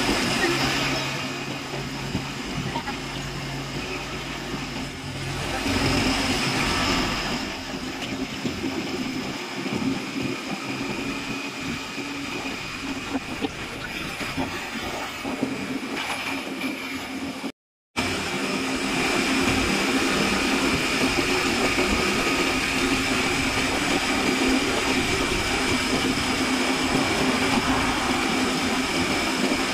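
Steady engine and road noise of a small open-sided passenger vehicle, heard from inside while it is moving. It cuts out completely for a moment just past the middle, then carries on steadier and a little louder.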